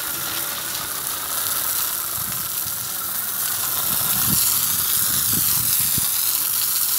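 Garden hose spray from a pistol-grip nozzle, a steady hiss of water jetting onto a wall and concrete floor, growing louder about four seconds in.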